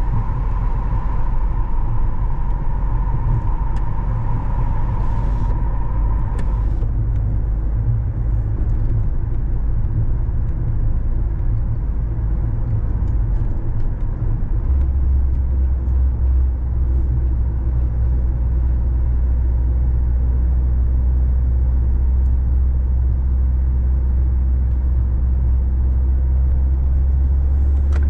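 Car on the move: steady engine and road rumble. A thin steady tone above the rumble stops about six seconds in, and about halfway through the low drone becomes a strong, even hum.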